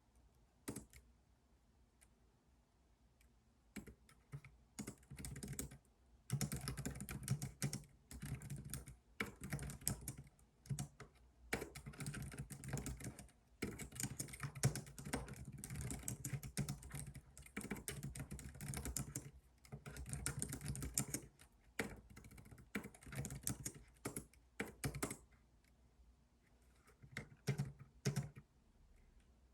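Typing on a computer keyboard: scattered keystrokes at first, then fast runs of key clicks broken by short pauses, stopping a few seconds before the end apart from a couple of last taps.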